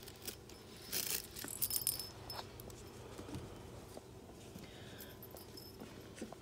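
Chihuahua puppies scuffling and rustling among plush toys on a blanket, with a cluster of light jingling clicks about a second in.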